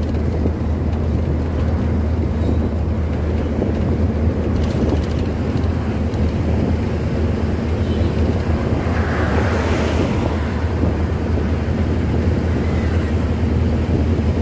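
Truck engine droning steadily under road and wind noise, heard from inside the cab while driving on the highway. A brief hiss swells up about nine seconds in and fades a second later.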